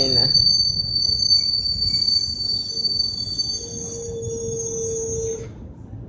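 NJ Transit multilevel passenger train rolling past with a steady rumble and a steady high-pitched squeal. A lower steady tone joins about three and a half seconds in, and the squeal and tones stop shortly before the end.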